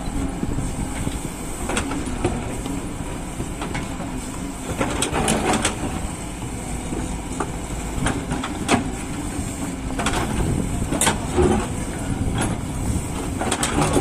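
Doosan DX140 excavator's diesel engine running steadily, with scattered sharp knocks and clanks over it.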